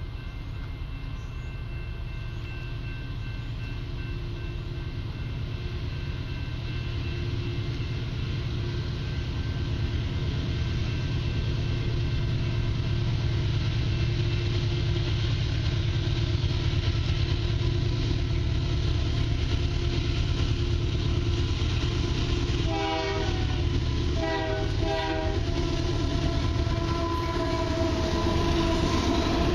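Diesel locomotives of a Canadian Pacific freight train approaching, their rumble slowly growing louder. A train horn sounds in a few short blasts about two-thirds of the way through, and the lead locomotives pass close near the end.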